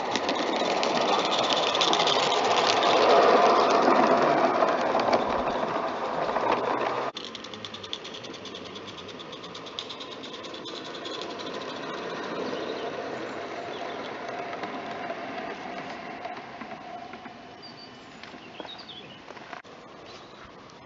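Garden-scale model train running on outdoor track, a close, rapid mechanical chatter that grows louder over the first few seconds. About seven seconds in it drops sharply to a fainter, more distant run of the same kind of sound.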